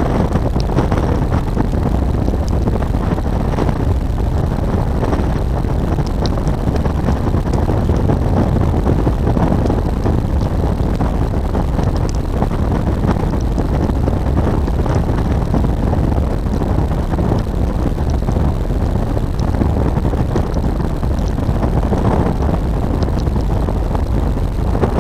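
Motorcycle being ridden at a steady pace, a BMW R1200 GS Adventure's boxer-twin engine running under a steady rush of wind on the microphone.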